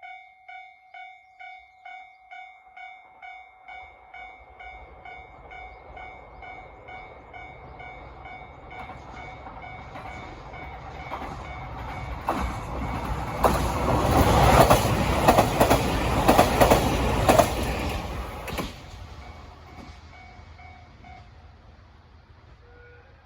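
Japanese railway level-crossing alarm ringing about twice a second while a train approaches and passes. The train grows louder to a peak about two thirds of the way through, with its wheels clacking over the rail joints, then fades. The alarm stops near the end.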